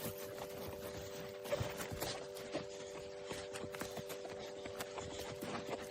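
Footsteps on hard ground at a walking pace, a run of short clicks and knocks, over a steady hum.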